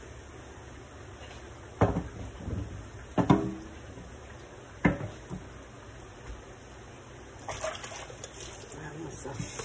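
Three sharp knocks of hard items set down on a wooden cutting board, the second with a short ring, over the steady low hiss of plantain slices frying in oil. The sizzle and some clatter build up near the end.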